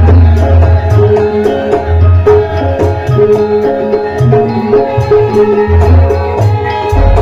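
Live Javanese gamelan music accompanying a lengger dance, with frequent hand-drum strokes over ringing pitched metal tones and a deep bass boom that drops out for a while and returns near the end.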